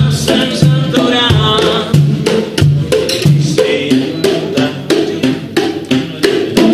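A live band playing a song with a steady drum beat and a bass line.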